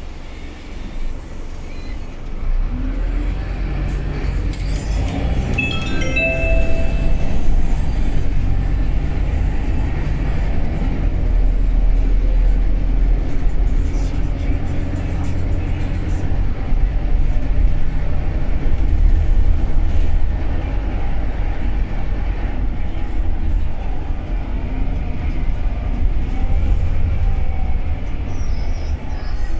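City bus engine and road noise heard from inside the cabin, a steady low rumble that grows louder over the first several seconds as the bus gathers speed, its engine note rising and falling. A short tone sounds about six seconds in.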